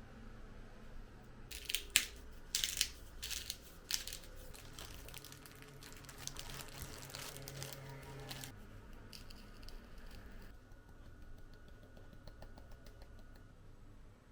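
Crinkling and rustling handling noise with several sharp clicks in the first few seconds, going on for a while and then dying down to faint ticking.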